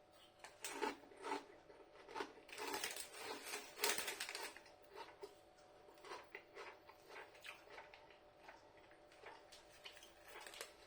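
Chewing crunchy crinkle-cut crisps: a run of short, crackly crunches, busiest in the first few seconds, then fainter and more spread out.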